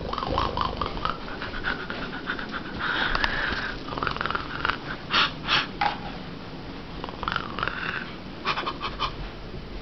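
Playful teasing growls and short harsh growling noises, with three loud short bursts a little past halfway.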